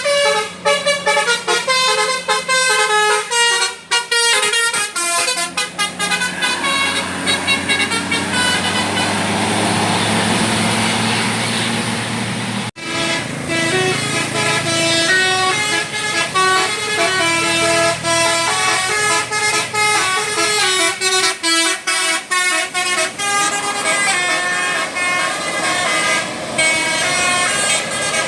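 Bus 'telolet basuri' musical horn playing a tune of short held notes that step up and down in pitch. A rushing noise takes over for a few seconds near the middle, and the melody breaks off suddenly about 13 seconds in, then starts again.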